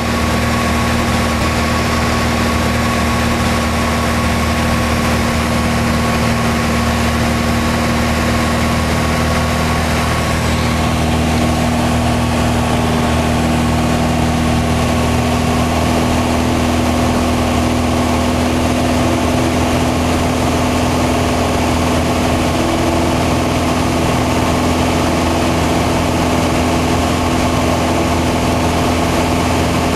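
Piper Turbo Arrow's turbocharged six-cylinder engine and propeller droning steadily as heard inside the cockpit in flight, on the approach. Some of its tones shift slightly about halfway through.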